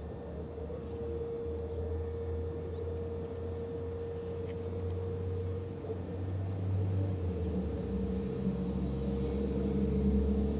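Outdoor warning sirens sounding a steady tone, several at once from different distances. A second, lower steady tone comes in near the end and the sound grows a little louder.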